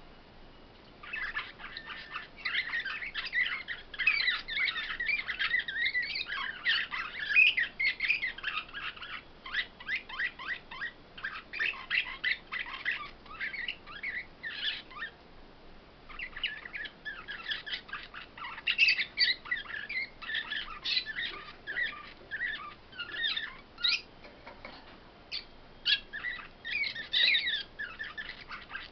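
Caged songbirds singing long, fast twittering phrases, with brief pauses about a second in, around the middle and a few seconds before the end.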